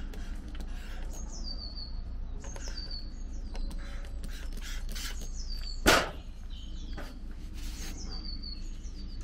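Short hissing spritzes from a hand trigger spray bottle misting water, the sharpest and loudest about six seconds in. A small bird sings repeated short falling chirps in the background.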